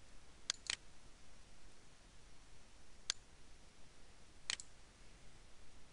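Computer mouse buttons clicking over faint room hiss: a quick pair about half a second in, a single click about three seconds in, and another quick pair about four and a half seconds in.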